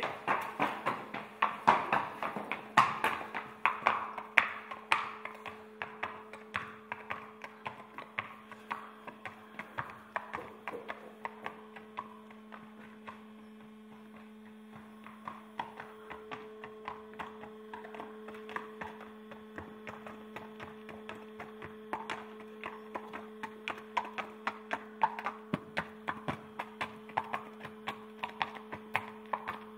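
A horse's hooves clip-clopping on concrete: a steady beat of sharp taps, loudest in the first few seconds and again near the end. A steady low hum runs underneath.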